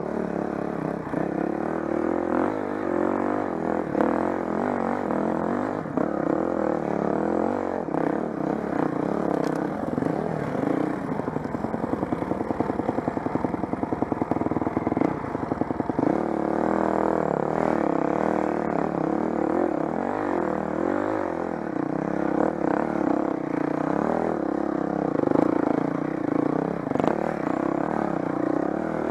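Honda CRF dirt bike engine running on a rough trail, its pitch rising and falling with the throttle, with knocks and clatter from the bike over rocks. For a few seconds midway it chugs at low revs in a rapid, even pulse.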